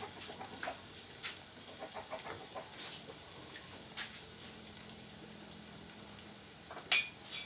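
Light kitchen clatter: a few small knocks and taps as a mug and utensils are handled on a concrete counter, with two sharp clicks close together near the end.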